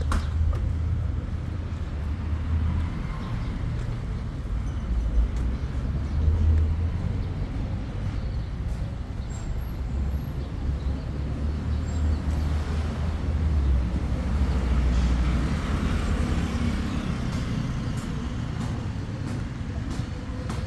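Street traffic: cars driving along a paved city street, with a low rumble throughout. One car passing swells louder for a few seconds just past the middle.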